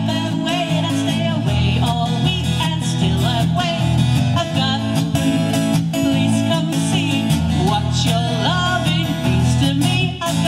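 A live band playing a song: strummed acoustic guitar with a singing voice over it.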